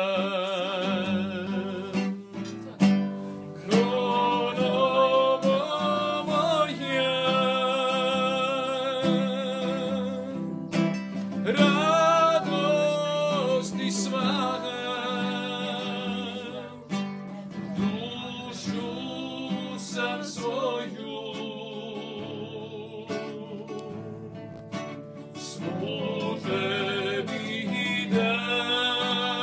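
A man singing a traditional Croatian song in long, wavering held notes, accompanied by a classical guitar.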